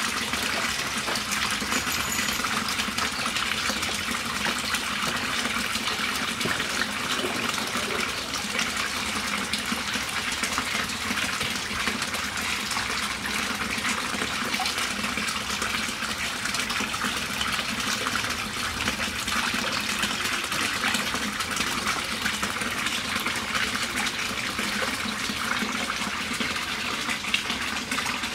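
Water running and splashing steadily into a garden goldfish pond, an even, unbroken rush.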